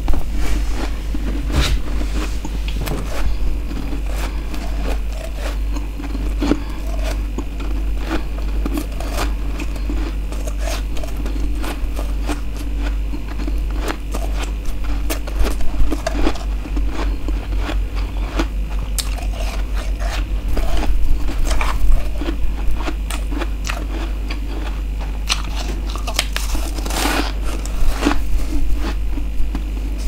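Freezer frost being bitten and chewed: crisp, irregular crunching and crackling, with louder clusters about halfway through and again near the end, over a steady low hum.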